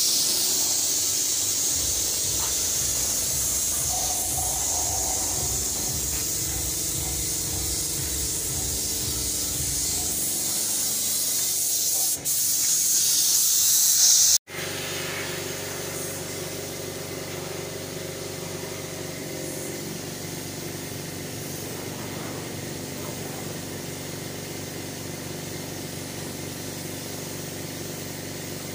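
Compressed-air spray gun with a top-mounted paint cup hissing steadily as it sprays black rubber underbody paint. About halfway through the sound cuts out for an instant and returns fainter, the hiss now over a steady low hum.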